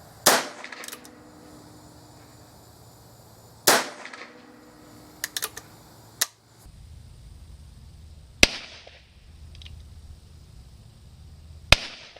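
Heritage Rancher .22 revolver carbine fired four times, several seconds apart, each shot a sharp crack with a short echo. A few lighter clicks sound between the second and third shots.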